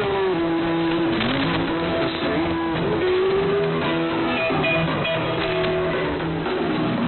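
Guitar music received over shortwave AM radio, the sound narrow and cut off above about 4 kHz, with held and sliding notes.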